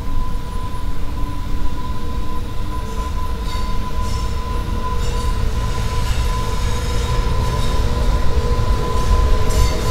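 EH500 electric locomotive hauling a container freight train as it approaches: a steady rumble with a constant whine, and a high hiss from the wheels and rails that builds from about three seconds in.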